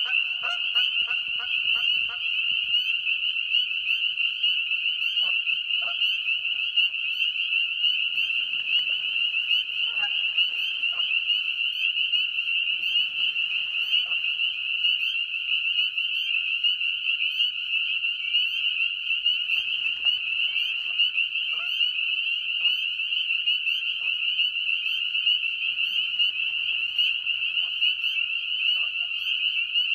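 Dense chorus of spring peepers: countless high, short rising peeps overlapping into a continuous ringing. Geese honk during the first couple of seconds, and a few fainter short calls come through later.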